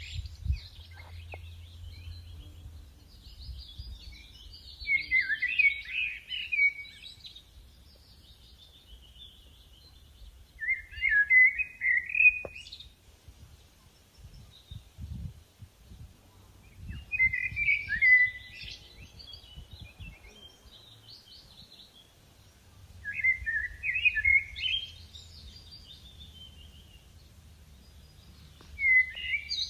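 A songbird singing a loud phrase of about two seconds, five times at roughly six-second intervals, with fainter chirping of other birds in between. A low rumble runs underneath.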